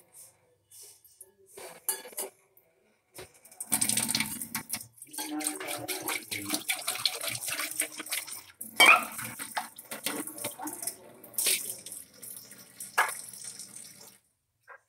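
Tap water running into a stainless steel sink and splashing into a steel bowl held under the stream, starting a few seconds in and stopping near the end, with knocks and clinks of steel dishes.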